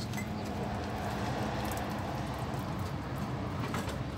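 Steady low rumble of idling truck engines, with a few faint clicks near the end.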